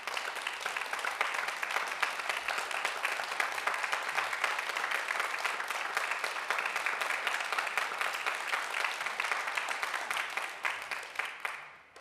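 Audience applauding, a steady dense clapping that dies away about eleven and a half seconds in.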